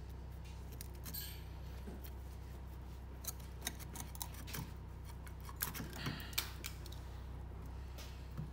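Several sharp metal clicks and clinks as a 2003 Subaru Outback's rear brake caliper and pads are handled and worked off the disc, most of them bunched in the middle, over a steady low hum.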